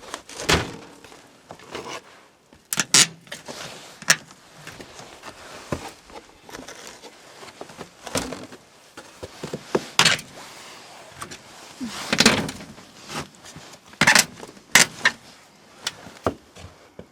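Irregular knocks and clunks of objects being handled, moved and set down, about a dozen over the stretch, some sharp and loud, with quieter rustling in between.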